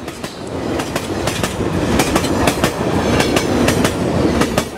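A steady rumble with many irregular sharp clacks running through it. It fades up over about the first second.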